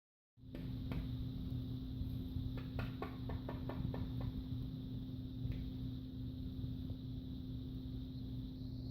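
Steady low electrical hum with a faint high whine, broken by a quick run of about a dozen light taps or clicks between about two and a half and four and a half seconds in.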